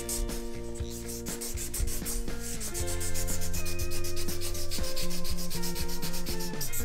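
Felt-tip marker scribbling quickly back and forth on paper, a fast run of scratchy rubbing strokes as an area is coloured in. Steady held tones sound underneath and change to a new set about a third of the way through.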